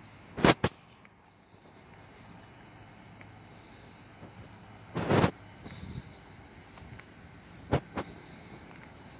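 Steady high-pitched insect buzz, with a few short knocks: two just after the start, one about five seconds in and two close together near the end. No engine is running.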